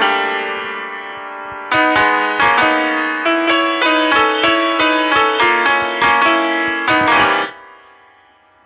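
Piano music: a chord dying away, then a run of struck notes at about two a second, which stops and fades out near the end.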